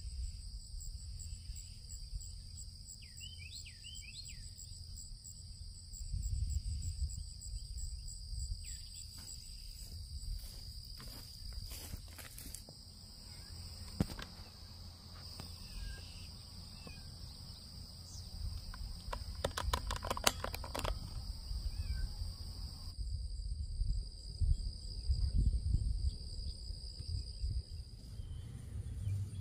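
Steady high-pitched insect chorus, with a low rumble underneath and a few short bird chirps a few seconds in. A quick run of clicks comes about two-thirds through, and the insect chorus stops soon after.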